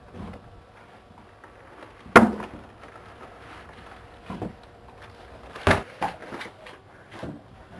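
A handful of sharp knocks and thumps, the two loudest about two seconds in and again three and a half seconds later, with fainter knocks in between and after.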